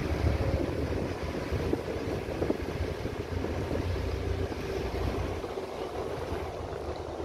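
A boat's engine running at steady pace, with water washing against the hull and wind buffeting the microphone.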